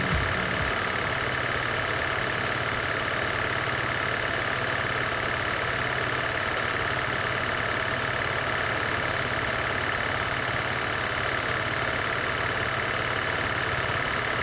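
Vintage film projector running: a steady, fast mechanical clatter with hiss, unchanging throughout.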